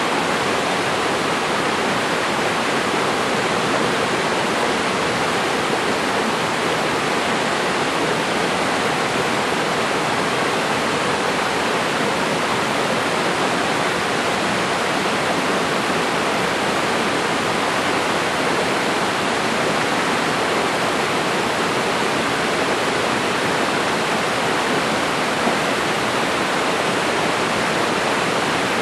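Swift stream after rain rushing over granite boulders in small whitewater cascades: a steady, loud rush of water that does not change.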